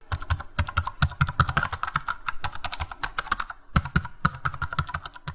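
Computer-keyboard typing sound effect: a fast, irregular run of key clicks, with a short break a little before four seconds in.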